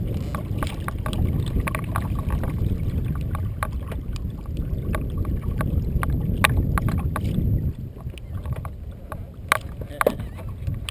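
Wind rumbling on the microphone of a kayak on choppy water, with scattered small knocks and clicks from the hull and gear. The rumble dies down about eight seconds in.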